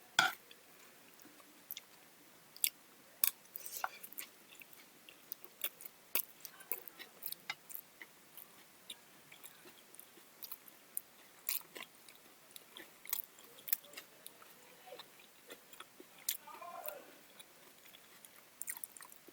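A person chewing and eating, with irregular small, sharp clicks and smacks scattered throughout.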